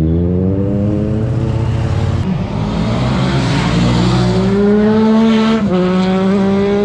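Superbike engine accelerating hard through the gears. Its pitch climbs, drops at an upshift a little over two seconds in, climbs again, and drops at a second upshift between five and six seconds in.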